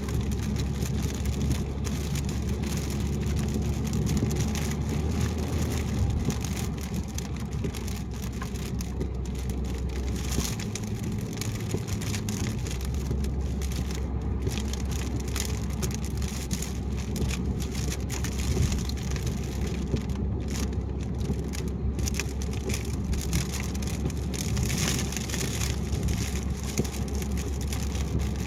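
Car driving on a wet highway in the rain: rain on the car and wet road noise over a steady low hum.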